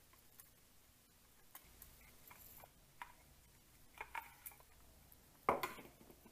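Faint scattered clicks and small knocks of a handheld barcode scanner's plastic housing and circuit boards being handled during disassembly, with one sharper, louder click about five and a half seconds in.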